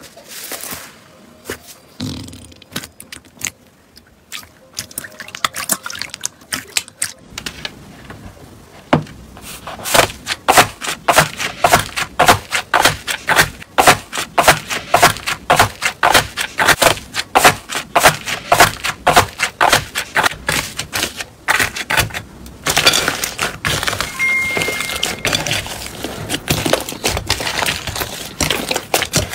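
Slime being squeezed and pulled by hands: a few soft clicks and squishes at first, then from about seven seconds in a long run of dense crackling pops as a yellow slime with a cracked, crusty top is broken up and stretched, growing denser near the end.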